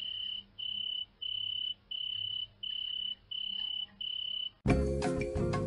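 Crickets chirping in a steady rhythm, a high trill about half a second long repeating roughly one and a half times a second. About 4.7 seconds in, loud music cuts in abruptly and drowns them out.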